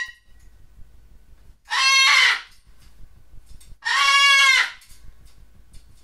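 Cockatoo calling twice, each call under a second long and rising then falling in pitch, about two seconds apart.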